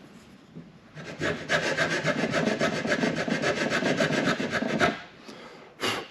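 A round file rasping back and forth on the coped end of a piece of wooden base molding, quick even strokes for about four seconds and then stopping, with a single light knock near the end. The file is fine-tuning the cope up to its pencil line so the joint closes tight.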